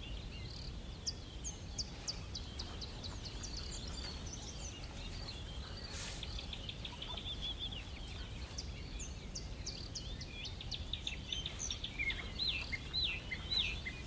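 Wild birds chirping: many short, high chirps scattered throughout, growing busier near the end with a few quick whistled notes, over a low steady rumble.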